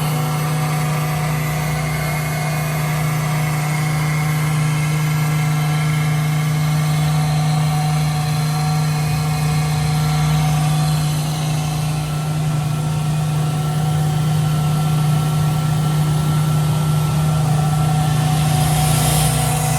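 Ingersoll-Rand IRN 15 K CC HV electric industrial air compressor running steadily, with a strong low hum and several steady tones over it, growing a little louder and hissier near the end.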